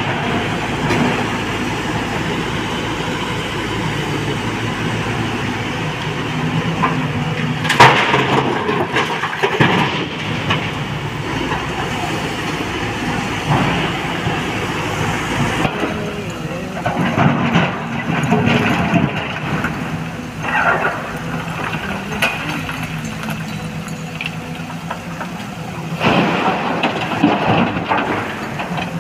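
A crawler excavator's diesel engine runs steadily while it loads broken rock. Loud crashes come several times as rock drops into a steel dump truck body, the loudest about eight seconds in.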